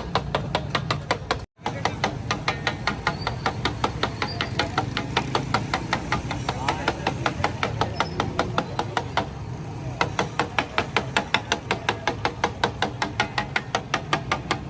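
Metal spatula rapidly striking an iron tawa griddle, about four to five strikes a second, over a steady low hum. The sound cuts out completely for a moment about a second and a half in.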